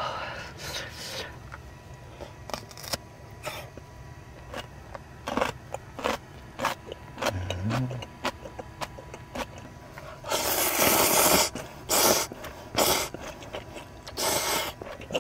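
Person eating noodles with chopsticks: scattered light clicks and scrapes of the chopsticks against the pan, then loud slurping of noodles about ten seconds in and again briefly near the end.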